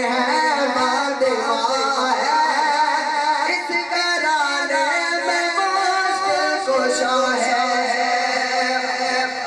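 A man's solo voice singing a naat, Urdu devotional verse in praise of the Prophet, into a microphone, with long held notes and wavering melodic ornaments.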